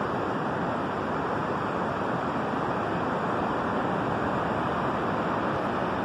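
Steady wind noise and the wash of surf on the beach, an even, unbroken rush with no distinct events.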